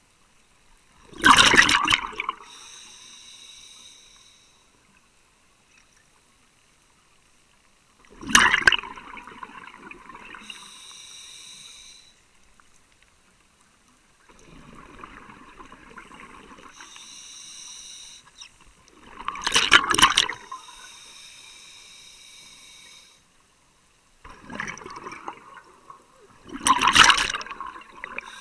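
Scuba diver breathing through a regulator underwater: four loud rushes of exhaled bubbles, several seconds apart, with the quieter hiss of the regulator on the breaths in between.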